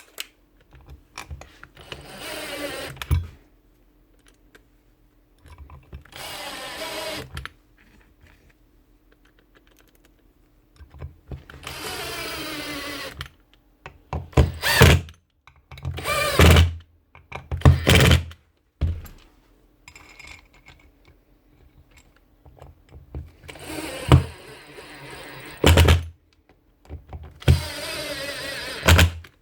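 A small power-tool motor run in short bursts of one to two seconds, about eight times, its pitch dropping during each burst, with a few sharp knocks between them.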